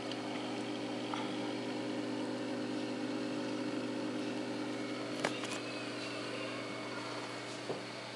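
Steady hum of a small aquarium filter pump with a hiss of moving water from its outlet. Two faint clicks in the second half.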